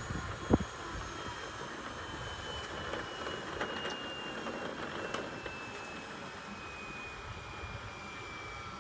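Bell 206 LongRanger's turbine engine winding down after shutdown, its whine falling slowly in pitch as the main rotor slows. A single sharp knock comes about half a second in.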